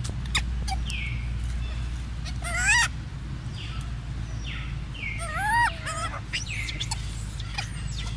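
Young macaque squealing: two short, high, wavering calls, about two and a half seconds in and again about five seconds in, with softer short downward chirps between them.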